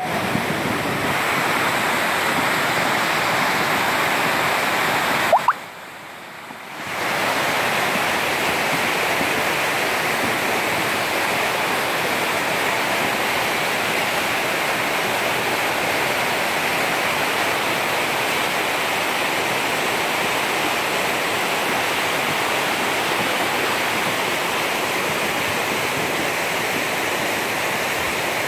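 Steady loud rushing of a muddy mountain stream in flood, swollen after rain. About five seconds in, a brief rising squeak, then the rush drops away for a second or so before it returns.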